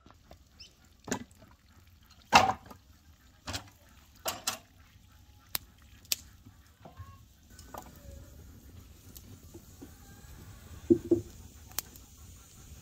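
Wooden knocks and clunks of split firewood logs being set down and loaded into a small wood-burning stove, a series of separate strikes with the loudest about two and a half seconds in.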